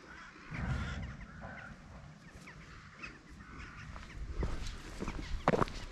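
Faint outdoor sound with low wind rumble on the microphone and a few short animal calls about a second in, then footsteps on the dirt track as the walker sets off near the end.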